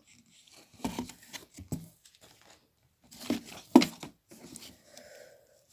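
A paper catalogue being handled, rustling and crinkling in two bursts of crackles, the second louder.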